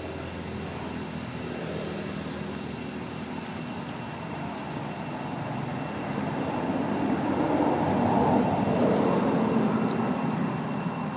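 Rumble of a passing vehicle, growing louder to a peak about eight seconds in and then fading.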